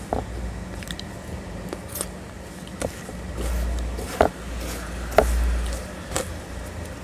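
Fingers scooping and squishing a thick, wet grey paste against a plate, with sharp wet clicks roughly once a second.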